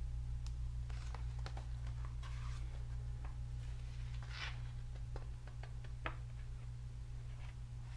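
Hardcover picture book handled and turned over in the hands: scattered paper rustles and light taps, one sharper tap about six seconds in, over a steady low hum.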